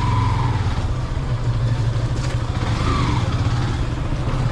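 Motorcycle engine running at a steady pitch, with steady road and wind hiss over it.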